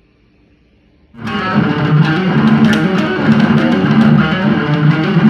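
Electric guitar music starts abruptly about a second in and plays on loudly, with quick picked notes over a full, dense backing.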